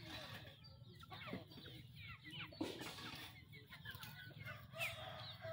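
A flock of young chickens peeping and clucking as they forage, with many short, high chirps overlapping throughout.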